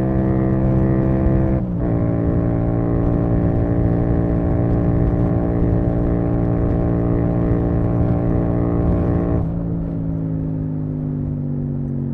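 Yamaha MT-07's parallel-twin engine through a full Akrapovic titanium exhaust, heard from the bike while riding. It holds a steady speed, drops in pitch with a brief dip in loudness about two seconds in as it shifts up, then cruises evenly. Near the end the throttle is rolled off: the sound gets quieter and its pitch slowly falls.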